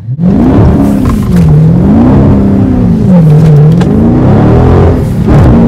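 Dodge Charger SRT's V8 engine at hard throttle, loud, its revs climbing and falling back several times as the tyres spin and lose traction on the wet road and the car slides.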